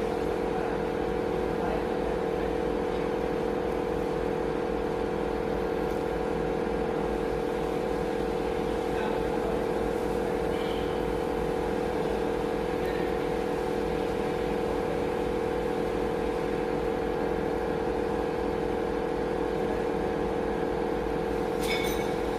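GMC engine idling steadily, with an even hum that holds the same pitch throughout. A short click comes near the end.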